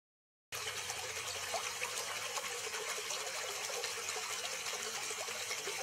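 Steady splashing and trickling of running water at a koi pond, starting abruptly about half a second in.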